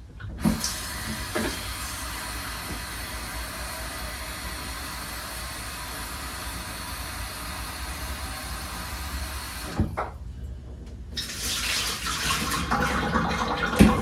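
Tap water running steadily as a small electric kettle is rinsed out to clear sand and grit. The flow stops abruptly about ten seconds in. Near the end the water sounds return, more uneven, with a sharp knock.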